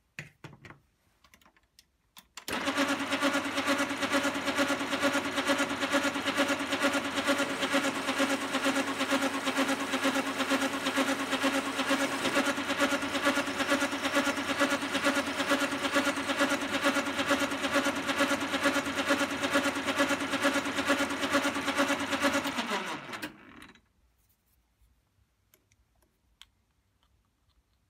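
Small metalworking lathe switched on after a few clicks, its motor and gearing running at a steady pitch with a fast even flutter. Near the end it is switched off and spins down, the pitch falling.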